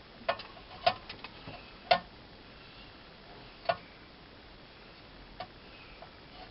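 Scattered sharp clicks and light taps of small hard objects being handled, irregular and unrhythmic, bunched in the first two seconds with the loudest about two seconds in, then two more spaced out.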